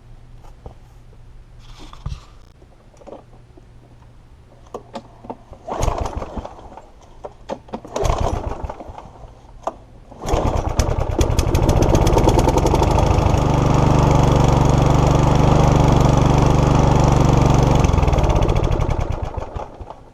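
Mountfield HP454 push mower's small petrol engine being pull-started: two short pulls that don't catch, then on the next pull it fires and runs steadily for about nine seconds before fading out near the end. With no fuel in the tank, it is running only on carb cleaner sprayed into the cylinder.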